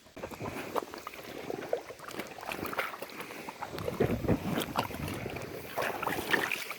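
River water splashing and sloshing in a busy run of small, irregular splashes.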